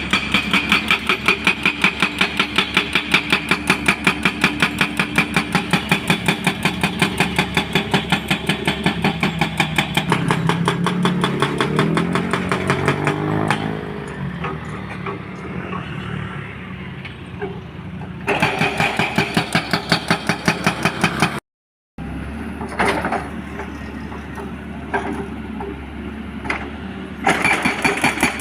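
Engine running nearby with a steady, even pulsing beat. A vehicle passes about halfway through, rising and then falling in pitch. After a brief cut there are a few scattered knocks before the pulsing engine sound returns near the end.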